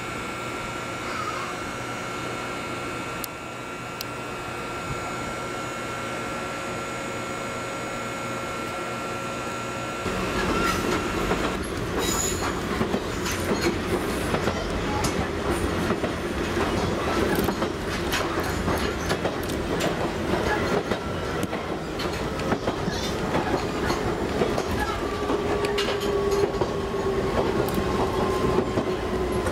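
A standing electric train's steady hum, then, after a cut about ten seconds in, an Ichibata Electric Railway 3000-series (ex-Nankai 21000-series) electric train running, heard from inside the cab. Its wheels clack over the rail joints under a whine that slowly falls in pitch near the end.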